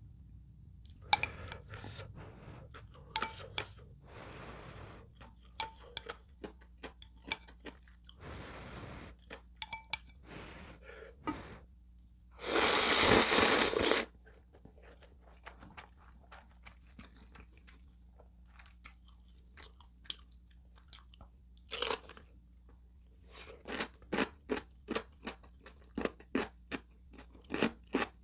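Close-up mukbang eating sounds of instant ramyeon and radish kimchi: wet chewing and short clicks, one long loud slurp about halfway through, and a run of crisp crunches of chonggak radish kimchi near the end.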